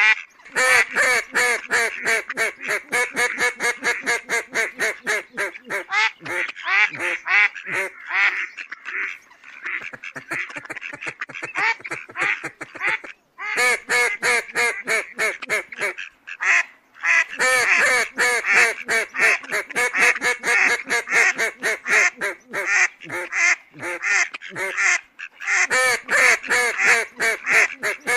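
Mallards quacking in a fast, unbroken run of calls, several a second. The calls go softer for a few seconds about a third of the way in, and there are brief pauses about halfway through and near the end.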